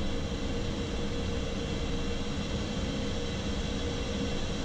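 Steady engine and airflow noise inside the cockpit of an Embraer Phenom 300E light jet climbing just after takeoff, its twin Pratt & Whitney Canada PW535E turbofans running. A low steady hum sits within the even rush.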